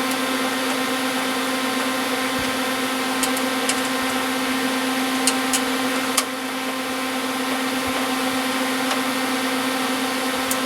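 A steady motor-like hum with a strong low tone, and a few short light clicks over it from the cooler's fan and radiator mounting hardware being handled and bolted in.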